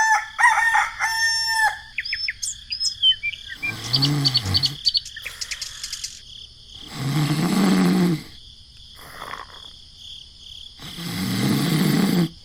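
Farmyard animal sounds: a rooster crowing at the start and small birds chirping, then three lower, drawn-out calls spaced a few seconds apart.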